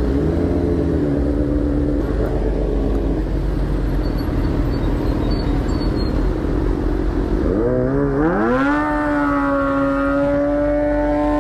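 Sport motorcycle engines running low in a group, then about seven seconds in one engine revs up quickly and is held steady at high revs, as for a burnout with the rear tyre spinning.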